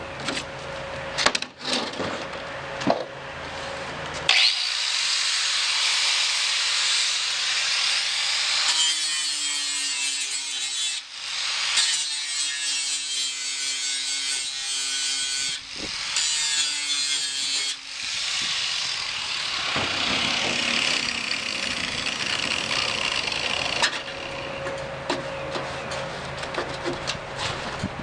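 Grinder grinding through spot welds on a steel door-shell flange. The motor's whine dips at times as the wheel is pressed into the metal. A few sharp knocks of metal come first.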